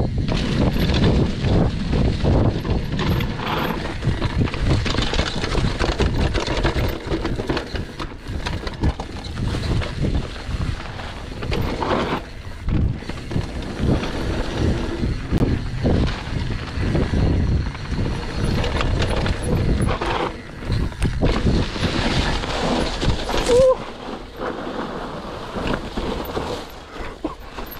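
Downhill mountain bike ridden fast down a leaf-covered dirt trail: tyres rumbling over dirt and dry leaves, and the bike rattling and knocking over bumps, with wind rushing on the microphone. A short squeak sounds a little before the noise drops, near the end.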